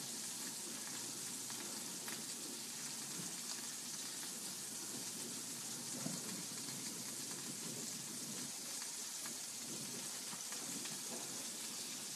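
Turkey burger patties sizzling steadily in hot oil in a skillet over medium heat, with a couple of faint ticks.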